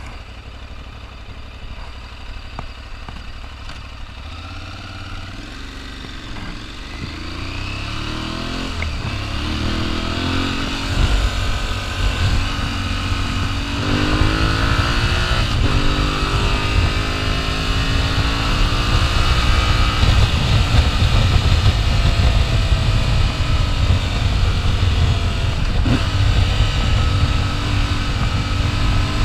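Aprilia Tuareg 660's parallel-twin engine running quietly at a standstill, then pulling away and accelerating. Its pitch climbs and drops back at each upshift over the first half. After that it runs steadily at speed under loud wind and road noise.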